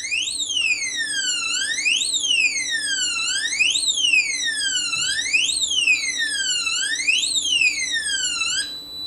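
Built-in alarm of a Day1 DF-45 Pro biometric safe, set off by repeated wrong codes: an electronic siren that rises quickly in pitch and falls back more slowly, about once every second and a half to two seconds. It cuts off near the end.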